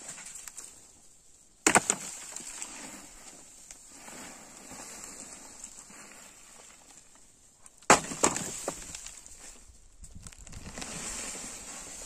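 Wooden roof timbers being broken or wrenched loose: two sharp cracks about six seconds apart, each followed by a short rattle of falling debris.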